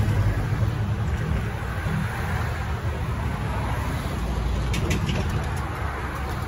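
Road traffic: cars driving past close by in a steady stream, a continuous rumble of tyres and engines. A few light clicks about five seconds in.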